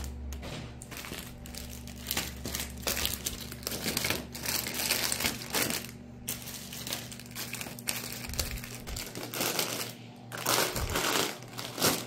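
Plastic snack and cookie packages crinkling and rustling as they are handled and put away on a shelf, with irregular light knocks.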